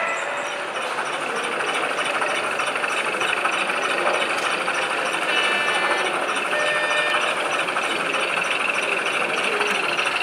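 Model railway layout running in a busy exhibition hall: a model diesel shunter moving on the track over a steady background hubbub, with a light even ticking about three times a second.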